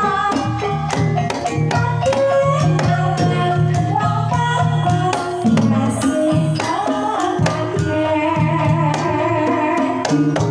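Banyumasan gamelan playing a tayub gending: a sinden sings a wavering melody over mallet-struck keyed instruments and hand-played kendang drum strokes.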